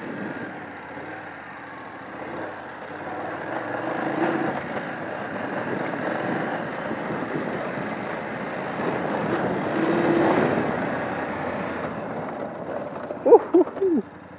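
BMW F 850 GS Adventure's parallel-twin engine running as the bike is ridden over loose gravel, with tyre and gravel noise, swelling louder around four and ten seconds in. Near the end comes a short, loud sound with a wavering pitch.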